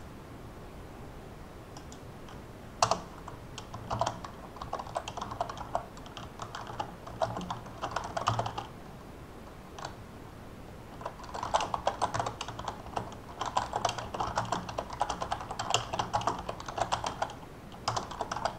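Typing on a computer keyboard: runs of quick keystrokes broken by short pauses, one of them about two seconds long near the middle. A single sharp click, the loudest sound, comes about three seconds in.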